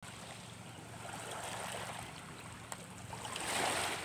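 Small sea waves washing over a pebble and rock shore, one wash swelling up near the end.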